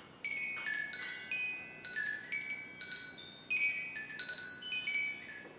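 Hanging metal-tube feng shui wind chime, set swinging by a hand pulling its wooden sail. The tubes are struck again and again, about twice a second, and their clear, high ringing tones overlap as they fade.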